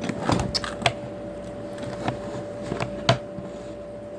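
Puzzle cube being turned by hand during a timed solve: a quick run of plastic clicks in the first second, then a few scattered single clicks, over a steady faint hum.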